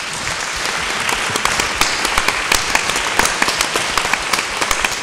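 Audience applause: many people clapping together, building up about a second in and holding strong, easing slightly near the end.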